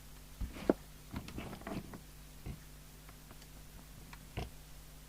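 A few light clicks and taps from test leads and tools being handled on a workbench, over a faint steady hum.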